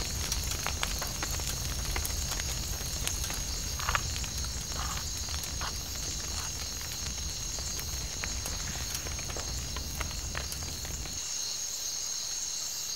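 Night insect chorus, a steady high trill, over the crackle and pop of a wood fire burning under a large water pot, with a low rumble that stops about eleven seconds in.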